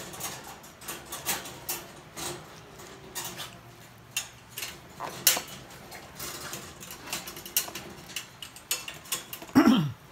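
Toy poodle puppies' claws clicking and scratching irregularly on a plastic slatted cage floor, with one short yelp falling steeply in pitch near the end.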